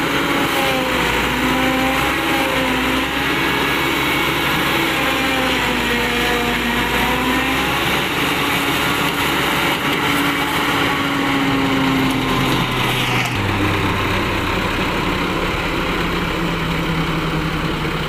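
Massey Ferguson 385 diesel tractor running under load, driving a Celmak stationary silage chopper as green corn stalks are fed in, with the whir and hiss of chopped forage blown up the spout. The engine note wavers as the stalks load the cutter, and about two-thirds of the way through the hiss drops and the engine tone shifts.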